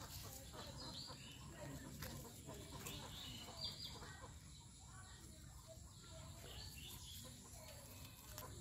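Faint bird calls, with scattered short high chirps and some lower short notes.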